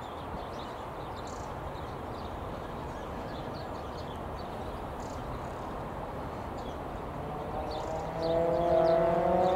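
Class 37 diesel-electric locomotive's English Electric engine running as the train moves off slowly. A growl and whine come in about eight seconds in, rising gently in pitch and getting louder as the engine takes power. Small birds chirp faintly throughout.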